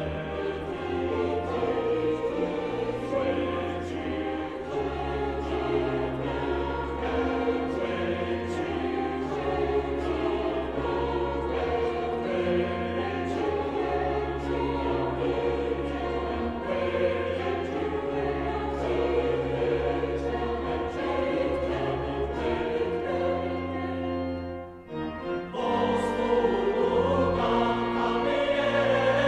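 Church choir singing a Latin Tenebrae responsory over long, sustained organ notes. The music breaks off briefly about 25 seconds in, then comes back louder.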